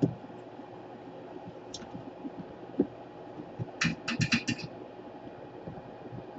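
Sharp clicks and light knocks of handling at a repair bench: one knock at the start, another nearly three seconds in, then a quick run of about six clicks around four seconds in, over a steady low hum.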